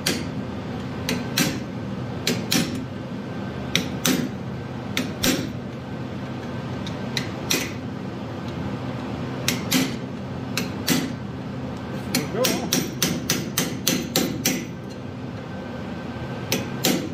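Hand hammer striking a narrow steel fuller held against red-hot steel, driving a forged turtle's legs outward. The blows come singly and in pairs at uneven spacing, then in a quicker run of about a dozen near the middle, with two more near the end.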